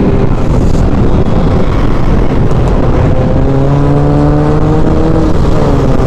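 Wind rushing over a motorcycle rider's microphone at road speed. An engine drone joins about halfway through and drops in pitch near the end.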